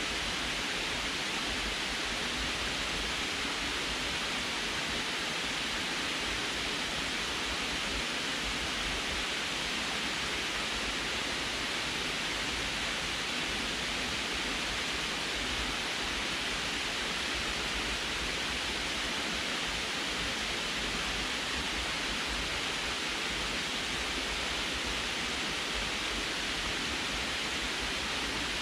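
Water pouring over a low concrete dam spillway and splashing into the pool below: a steady, unbroken rush of falling water.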